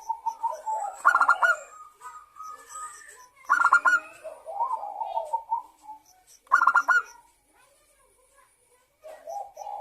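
Zebra dove (local perkutut) cooing. A fast, stuttering run of notes comes about every three seconds, each followed by a string of softer, lower coos.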